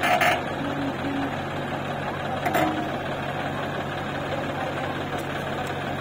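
Diesel engines of a JCB 3DX backhoe loader digging soil and a tractor standing beside it, running steadily. Two sharp knocks come through, one right at the start and one about two and a half seconds in.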